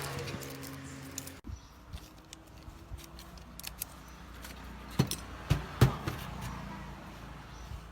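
Scattered clicks and taps of small parts and tools being handled, with a few louder knocks about five to six seconds in, over a low steady hum.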